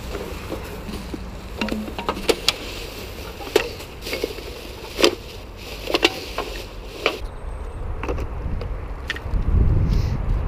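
Litter picking with a hand-held grabber tool: a string of sharp clicks and knocks as the grabber jaws close on rubbish and items clatter into a plastic bag holding bottles. A low rumble swells near the end.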